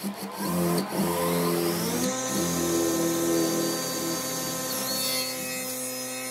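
Handheld electric drill boring a long wood bit into the end grain of a log. The motor's whine climbs in pitch over the first two seconds, then runs steadily under load.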